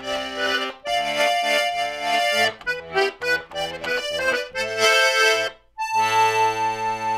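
Button accordion playing a lively melody of quick changing notes; after a brief break near the end it holds a sustained chord that pulses evenly.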